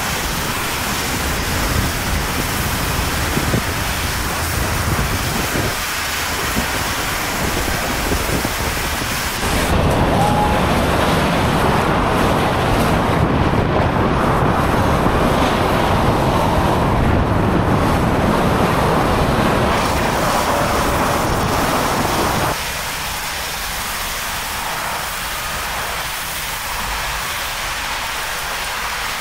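Hurricane-force wind and driving rain: a steady rushing noise with wind buffeting the microphone. It changes abruptly twice, growing louder and fuller about a third of the way in and dropping back to a thinner hiss about three-quarters of the way through.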